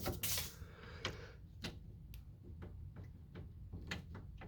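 A series of light, irregular clicks and taps, roughly two a second, from small kit parts being worked onto the window regulator's splined crank shaft.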